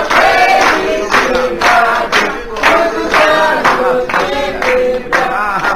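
A group of voices singing together in short, rhythmic phrases.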